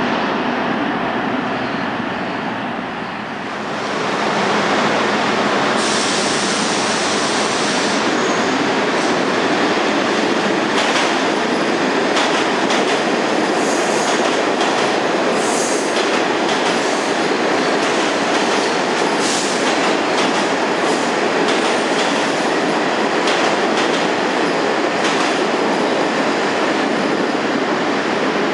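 R46 subway train on the A express line running through an underground station on the express track without stopping: the noise swells about four seconds in and holds as the cars pass, the wheels clattering over the rail joints with high wheel squeals now and then.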